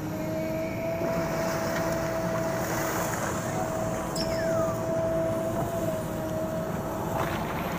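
JCB backhoe loader's diesel engine running steadily while working, with a steady whine over the engine noise.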